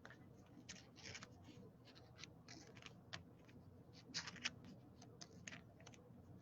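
Faint rustling and light clicks of trading cards being handled and slid against one another, in short scattered bits with a busier patch about four seconds in.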